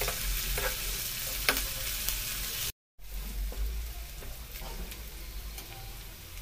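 Chopped onions and green chillies frying in oil in a kadai, sizzling steadily, while a perforated spatula stirs them and scrapes against the pan with a few sharp strokes. The sound cuts out for a moment about three seconds in, then the sizzling carries on.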